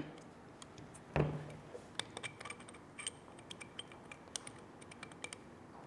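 Light metallic clicks and taps of oiled steel transmission parts being fitted and locked into place on a T56 main shaft, with one duller knock about a second in.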